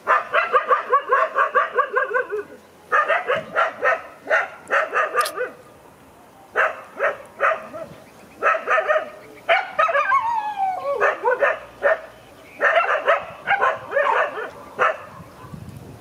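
A dog barking in quick runs of high yips, several bursts broken by short pauses. About ten seconds in there is a long falling whine.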